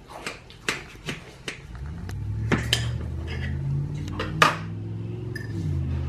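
Metal knife and fork clinking and scraping against a glass pie dish as a slice of baked pie is cut and lifted, a series of sharp clicks, the loudest about two and a half and four and a half seconds in. A low steady hum comes in about two seconds in and continues under the clicks.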